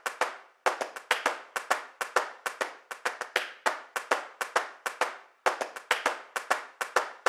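Sharp, dry hand claps in a fast, uneven rhythm of about five a second, with a brief break near the start and another about five seconds in. This is a clap-percussion intro sound bed.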